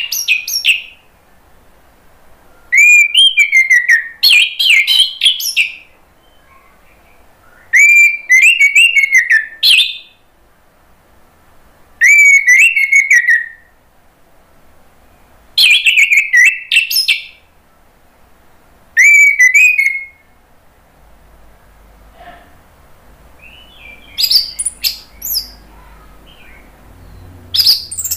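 Orange-headed thrush singing: loud phrases of fluting whistles mixed with rapid high chattering notes, one every three or four seconds with short silences between them and a longer pause about three quarters of the way through.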